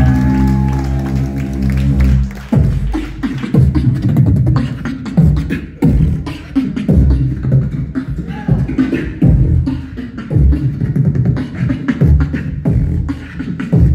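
Human beatboxing into a handheld microphone: a held, low buzzing bass note for about the first two and a half seconds, then a steady rhythmic beat of deep thumps and sharp hits.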